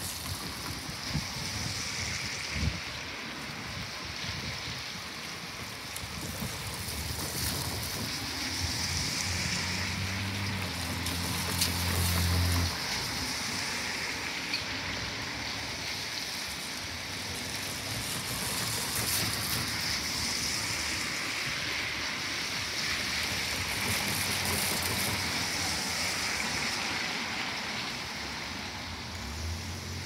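Steady hiss of falling rain. A low hum swells about a quarter of the way in and cuts off suddenly a little before the midpoint.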